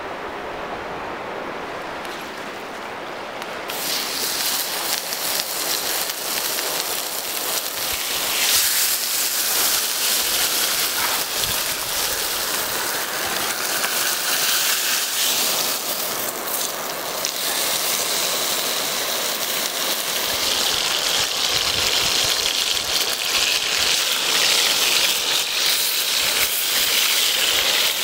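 A thick steak sizzling loudly in hot fat in a cast-iron pan. The sizzling starts suddenly about four seconds in, after a quieter stretch.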